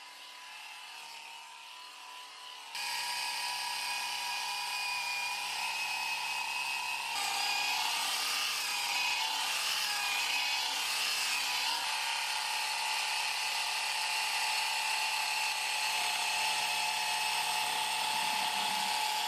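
Philips BRE235/00 corded compact epilator running with a steady high motor whine as its rotating tweezer head is moved over the leg, pulling out hairs. The whine gets louder about three seconds in and again a few seconds later, then holds steady.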